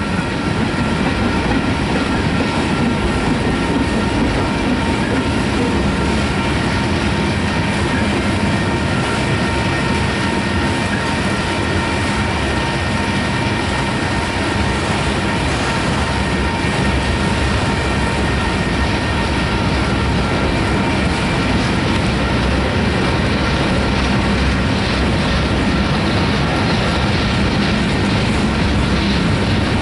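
Manifest freight train's tank cars and boxcars rolling past: a steady rumble of steel wheels on rail, with thin steady ringing tones above it.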